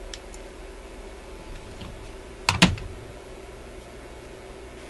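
Small hand tools and wire being handled: a few faint ticks, then one sharp double click about halfway through, over a faint steady hum.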